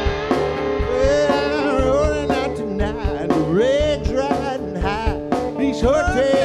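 A song played by a small band: a man singing over electric guitar and drums, with the voice coming in about a second in.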